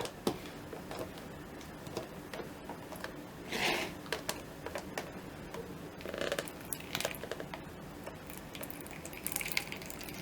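Hot cooking water being drained from a plastic microwave pasta cooker, in a few short splashes among light plastic clicks and handling sounds.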